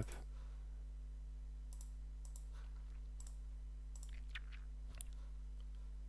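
Faint, scattered clicks of a computer mouse over a steady low hum.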